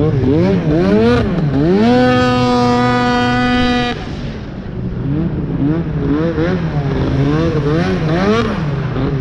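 Arctic Cat CFR 1000 snowmobile's two-stroke twin with a loud aftermarket GGB exhaust can, revving up and down in quick blips. It then climbs and holds a steady high pitch for about two seconds, drops off sharply about four seconds in, and the quick up-and-down revving resumes.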